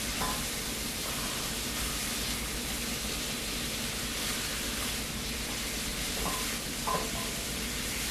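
Boiled baby back ribs and onions sizzling steadily in a hot pan as they sauté, with a few short, sharper sounds from the pan, mostly after about six seconds.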